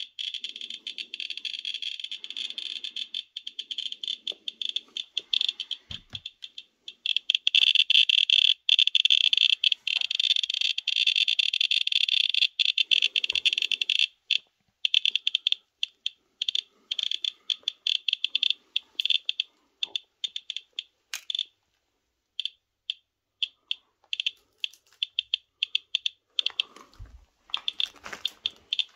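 Medcom Inspector Geiger counter clicking at a high count rate while held against radioactive sample bags. The clicks come so fast they nearly merge into a chatter, then thin out to separate clicks about halfway through as the meter moves away. A soft knock about six seconds in, and rustling and a low thump near the end.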